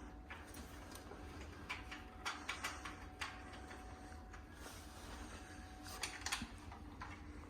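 Faint, scattered light clicks and knocks of hand tools and cot parts being handled during flat-pack cot assembly, in small clusters about two and a half seconds in and again about six seconds in.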